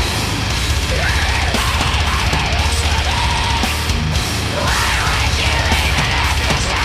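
Loud heavy metal music with a fast, even drum beat.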